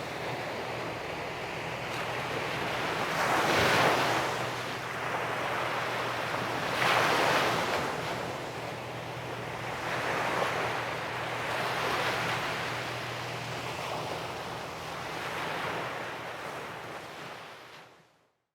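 Sea waves breaking on the shore, the surf rising in a wash every few seconds, loudest about four and seven seconds in. The sound fades out near the end.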